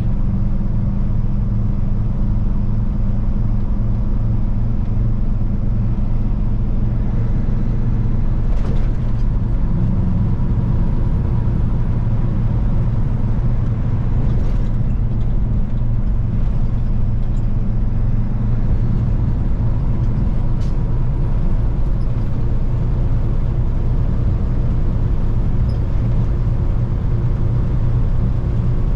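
Semi-truck's diesel engine running steadily at highway speed, a low, even hum with tyre and road noise, heard from inside the cab. A few faint clicks.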